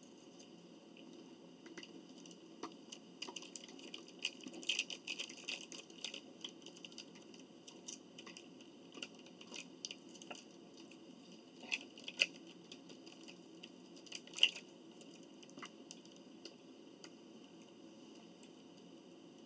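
Faint clicks, taps and rustles of people eating at a table, with a busier patch about four to six seconds in and a few sharper clicks, the loudest about fourteen seconds in.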